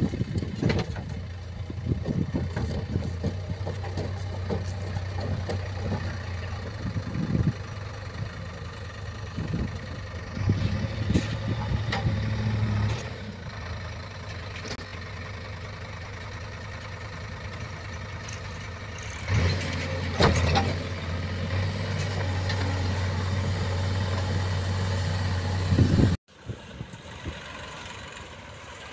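JCB 3DX backhoe loader's diesel engine running steadily, its note stepping up and down as the machine works, with scattered clanks and knocks. About 26 s in the sound cuts to a quieter engine, the New Holland 3037 tractor running.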